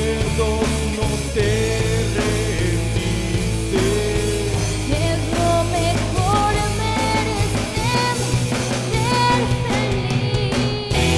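Rock band playing a demo song: drum kit and electric guitar, with a melodic line that bends and climbs in pitch.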